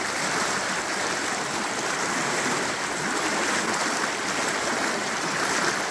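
Fast-flowing creek swollen with floodwater, rushing steadily.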